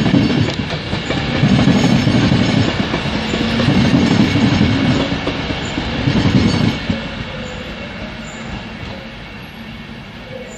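Passenger train running through the station, its wheels clattering over the rail joints in heavy rhythmic pulses, then fading away after about seven seconds as it moves off.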